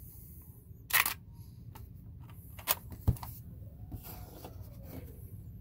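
Clicks and knocks of plastic from handling a Sharp JC-128 portable cassette player with its tape door open: a sharp snap about a second in, then two shorter clicks, one with a low thump, near the middle, over a faint steady hiss.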